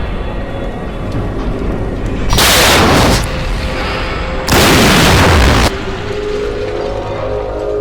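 Two mouth-made blast sounds, each about a second long, imitating explosions; the second drops in pitch. Steady background music plays under them.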